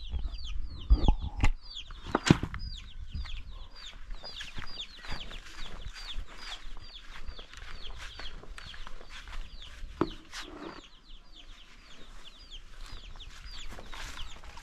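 Chickens peeping: a long run of short, high, falling calls, about three a second. A few sharp knocks come in the first couple of seconds, and another about ten seconds in.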